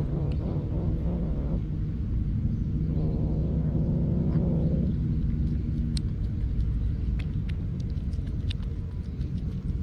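Stray cat growling low over its food in two drawn-out grumbles, the first at the start and the second a few seconds in, over a steady low rumble.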